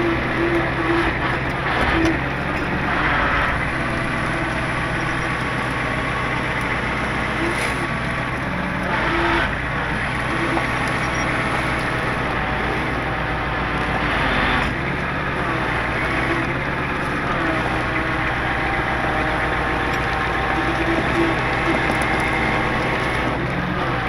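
A 4x4 wrecker's engine running steadily while its winch is worked from the controls at the rear of the truck, pulling on the cable to a stuck truck. It makes a continuous low mechanical hum.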